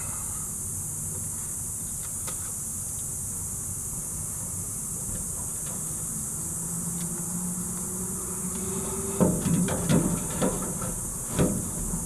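Steady hiss and low hum, then a handful of short metallic knocks and clicks about nine seconds in, as multi-tool pliers work at a wire connection inside a sheet-metal condenser cabinet.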